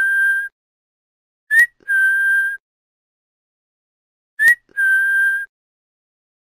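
Whistling in a repeated two-part call: a short, quick upward chirp followed by a held, steady whistle note of about half a second, coming round about every three seconds.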